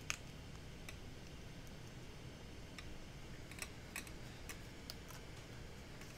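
Faint, scattered clicks and light taps of paper and cardstock being pressed down and handled by hand on a craft mat, one sharper click right at the start and a small cluster of clicks about three and a half to five seconds in.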